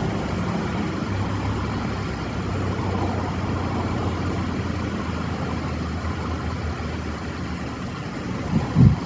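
A vehicle engine running steadily with a low hum, and a few low thumps near the end.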